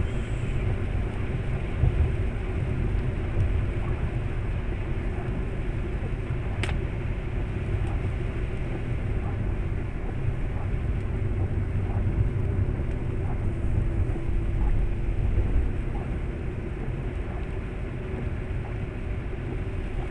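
Steady road noise of a car driving on a wet road at night, heard from inside the cabin: a low rumble of tyres and engine with a hiss above it. There is one sharp click about six and a half seconds in.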